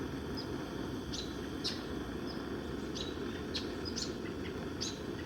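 Small bird chirping, short sharp notes repeated every half second to a second, over a steady low background hum.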